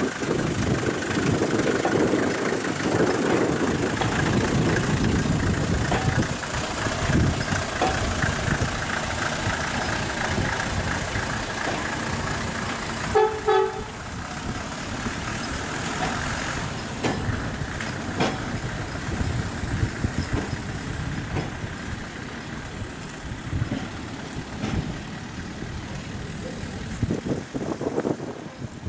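Narrow-gauge Wmd motor draisine's engine running as it moves off along the track, slowly fading as it draws away, with a brief horn toot about halfway through.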